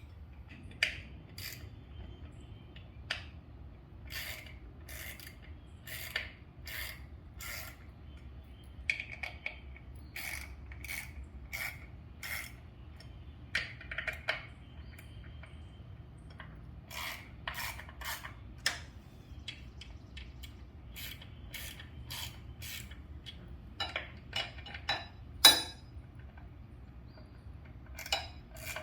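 Hand ratchet clicking in short runs of about five strokes as cover bolts are tightened in turn in a crisscross pattern on a Harley-Davidson Freewheeler, with one louder metallic knock near the end. A low steady hum runs underneath.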